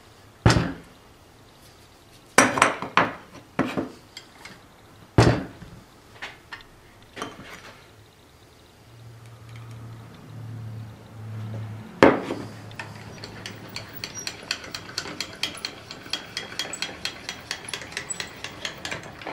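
Cast-iron and steel parts of a 1940 Hercus lathe saddle and cross slide clanking as they are handled on a bench: several sharp metal knocks, then a loud one about twelve seconds in. After that comes a steady run of rapid light clicking as the cross-slide feed screw is wound with its handle.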